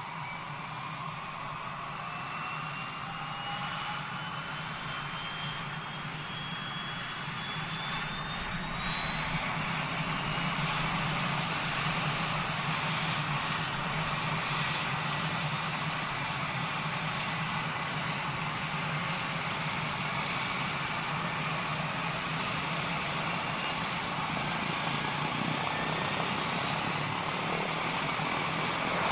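Airplane engine running, with high whines rising in pitch and the sound growing louder over the first ten seconds or so as the engine runs up, then holding at a steady pitch.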